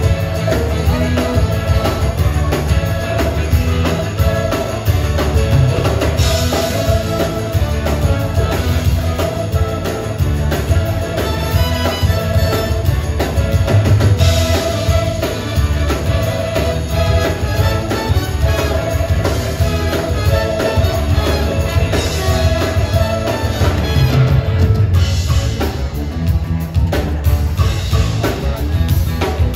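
Live stage band playing an upbeat number, with a drum kit, heavy bass and keyboards under a steady beat.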